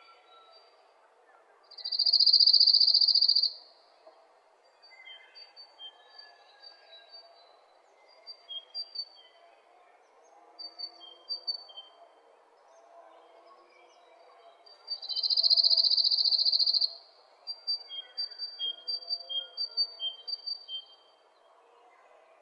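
Bird calls: twice a loud, high buzzing trill lasting nearly two seconds, each followed by a string of short, high chirps at two alternating pitches.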